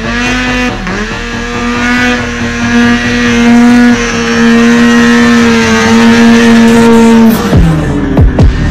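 Snowmobile engine running at high, steady revs as the sled approaches, its pitch dropping sharply as it passes by about seven seconds in.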